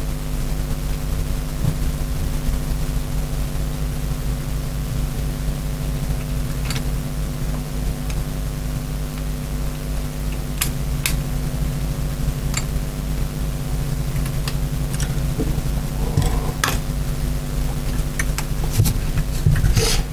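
A steady low mechanical hum, like a workshop fan, with scattered light metal clicks and taps of a screwdriver and small screws being worked into a Quadrajet carburettor, a few close together near the end.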